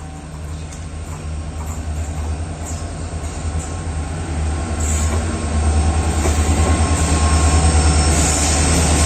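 Twin EMD diesel-electric locomotives running together, their engines making a steady low hum that grows louder as they approach. A hiss of wheels on rail builds in the second half.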